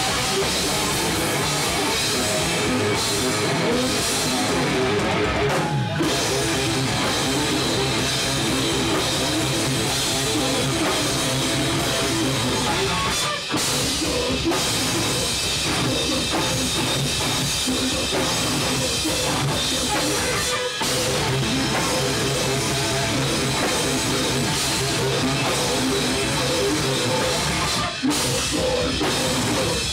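Death metal band playing live: loud drum kit and distorted guitars, with a few split-second stops in the music.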